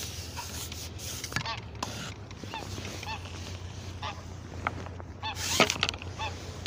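A group of geese honking over and over in short calls, with one short loud knock about five and a half seconds in.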